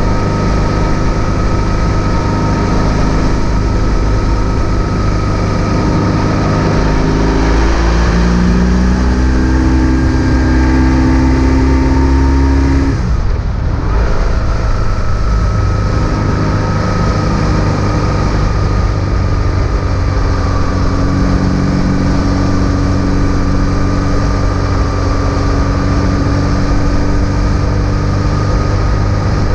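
BMW R1150 GS boxer twin engine running under way. Its pitch climbs for several seconds, breaks off briefly about thirteen seconds in, then holds steady.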